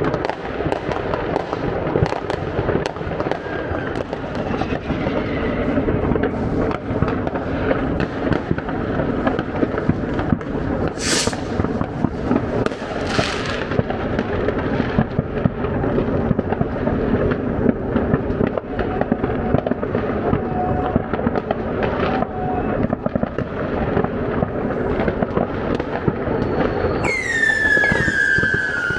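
Dense New Year's Eve fireworks: a continuous mass of crackling bangs from many rockets and firecrackers at once. There are two short hissing bursts about midway, and a falling whistle near the end.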